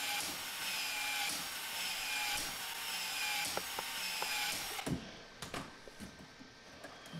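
A small power tool running in cycles of about a second each for roughly five seconds, then stopping, followed by several light clicks and knocks of handling.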